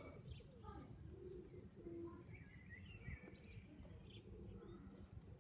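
Faint bird calls over a quiet outdoor background: soft pigeon cooing and a brief twittering call about halfway through.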